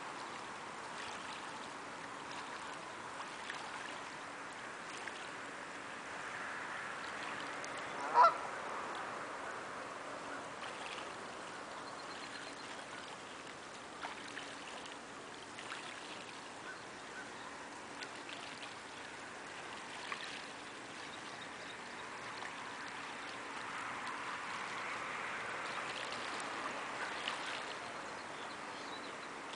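Canada goose giving one loud honk about eight seconds in. The honk sits over a steady wash of lapping water and faint small splashes from geese bathing in the shallows.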